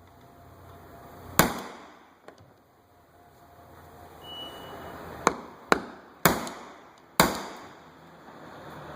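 Hammer blows on a tool, five sharp strikes at uneven intervals, each ringing briefly, as the fuel pump is knocked loose from a removed fuel tank.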